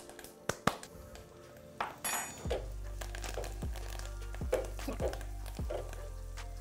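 A few light clicks of a spoon against a serving bowl, then background music with a steady, thudding beat comes in about two and a half seconds in.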